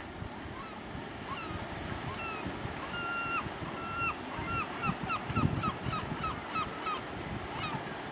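A gull calling: a few short calls, then two longer drawn-out calls about three and four seconds in, then a fast run of short yelping calls, about five a second, that trails off near the end. A low wind rumble on the microphone runs underneath.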